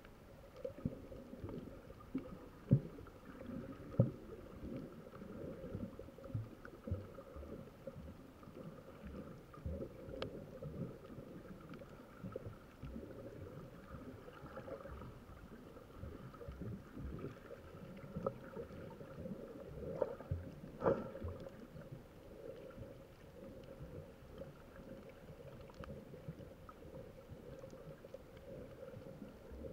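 Muffled underwater noise from a camera held below the surface: water swishing against it, with irregular knocks and thumps and a steady hum throughout.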